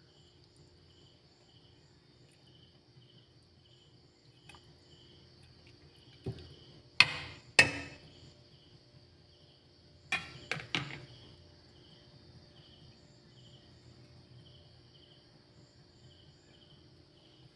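Crickets chirping steadily with a quick pulsing rhythm. It is broken by sharp knocks: a pair of loud ones a little before halfway, then three quicker ones a few seconds later.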